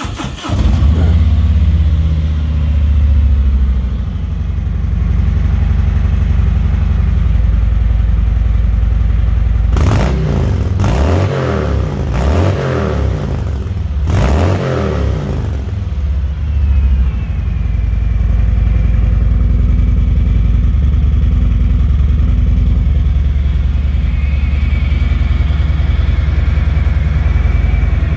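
Harley-Davidson Milwaukee-Eight 107 V-twin idling through a gutted catalytic converter and stock mufflers, with several quick throttle blips about a third of the way through before settling back to idle.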